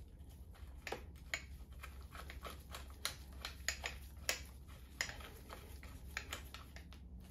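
Faint, irregular clicks and light taps as gloved hands handle the metal parts of a Zoom suspension fork during reassembly, over a low steady hum.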